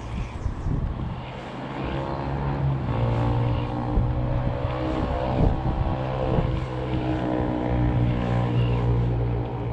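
A motor engine droning steadily, growing louder over the first few seconds and then holding, with strong wind buffeting the microphone.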